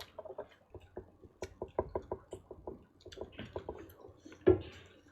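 A run of light, irregular clicks and taps, several a second, with a louder knock about four and a half seconds in.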